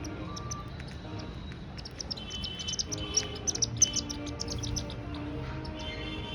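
Small birds chirping and twittering in quick, high notes, with a busy flurry about halfway through.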